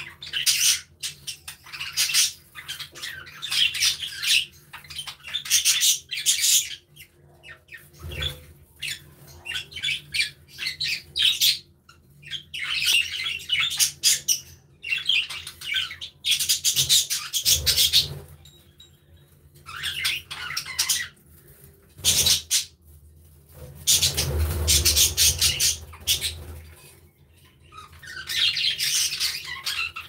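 A flock of budgerigars chattering and warbling, in bursts of rapid high chirps that come and go every second or two.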